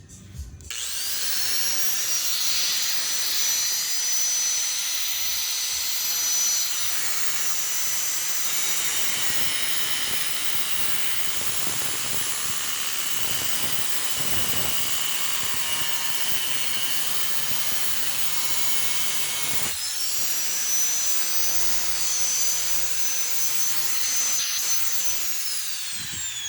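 High-speed electric grinder run against the steel of a circular saw blade: a high-pitched motor whine with a hiss of grinding. It spins up about a second in, stops and restarts briefly about two-thirds of the way through, and winds down, falling in pitch, near the end.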